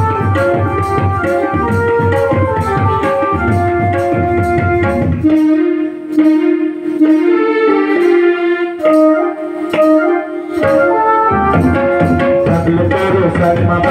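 Instrumental interlude of a devotional bhajan: a melody instrument playing sustained notes over rhythmic hand drums and jingling tambourine. About five seconds in the drums drop out, leaving the held, wavering melody notes alone for several seconds, and the drumming comes back near the end.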